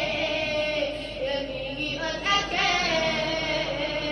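A boy chanting in a melodic, sung style into a microphone, holding long notes that bend up and down in pitch.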